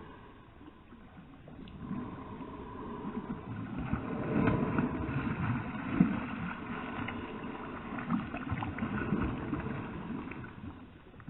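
Water splashing and lapping around a kayak, with small knocks against the hull, building up and then easing off.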